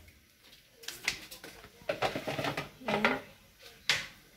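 Kitchen utensils clinking and knocking as they are handled: a few separate light knocks, with a sharper one near the end.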